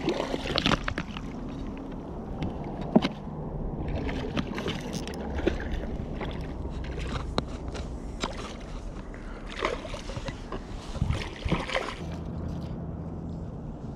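Water sloshing and lapping against a plastic kayak hull, with scattered knocks and small splashes while a hooked barracuda is fought up to the kayak.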